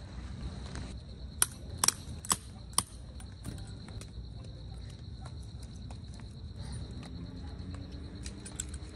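Insects trilling steadily on one high pitch over a low rumble, with four sharp clicks or clinks in quick succession between about one and a half and three seconds in.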